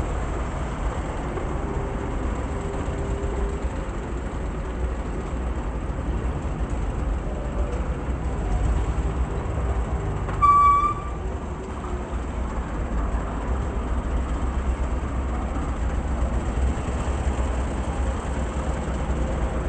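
Steady low background rumble with one short, high-pitched toot about halfway through.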